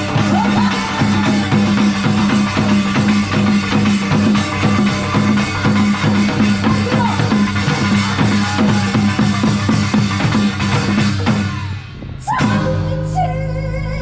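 Band playing an instrumental passage of a Korean folk-song arrangement: drum kit beating over a steady low bass drone, with gliding melody notes above. About twelve seconds in the full band drops out and a quieter section of held notes with a wavering melody begins.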